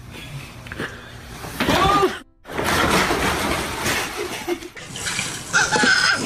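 Water splashing and gushing as a person lands in an inflatable kiddie pool and its sides give way, spilling the water out. A person yells about two seconds in, just before the splash, and a voice shouts near the end.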